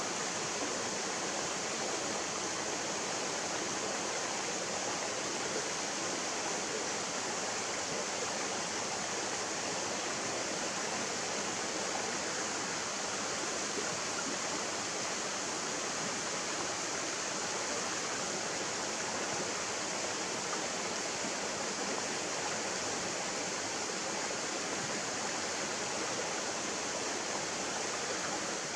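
Mountain stream rushing over rocks and small cascades, a steady, unbroken sound of flowing water.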